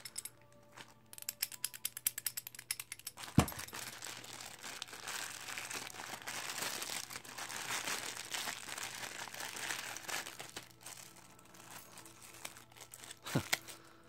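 Clear plastic packaging bag crinkling and rustling as it is handled and pulled open, starting as rapid small crackles. There is one sharp knock about three and a half seconds in and another shortly before the end.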